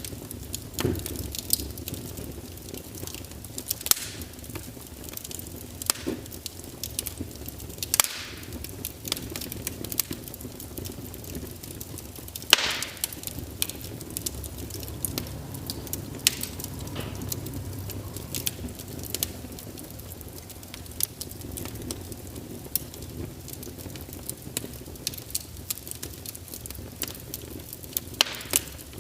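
Wood fire crackling: irregular sharp pops and snaps over a low steady rumble, with a few louder snaps scattered through.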